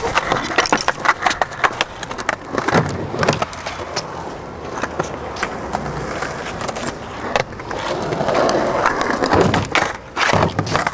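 Skateboards rolling on rough concrete, with many sharp clacks as boards slap down and trucks grind along concrete ledges. There is a longer scrape about eight seconds in.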